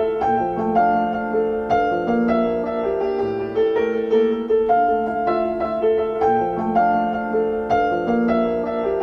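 Piano playing a slow melody over repeating chords, as the instrumental introduction of a pop song.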